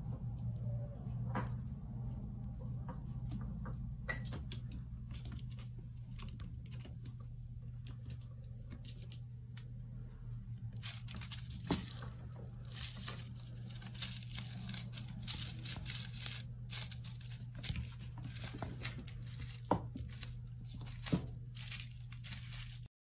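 Scattered light clicks and rustling from a kitten playing with a feather wand toy on a hard floor, over a steady low hum. The clicking grows busier about halfway through and stops abruptly near the end.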